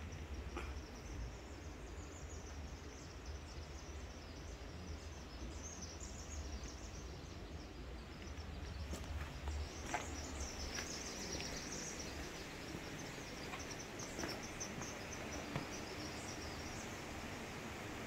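Outdoor woodland ambience: continuous high, flickering chirping over a steady hiss, with a low rumble and a few light clicks from camera handling, the loudest about ten seconds in.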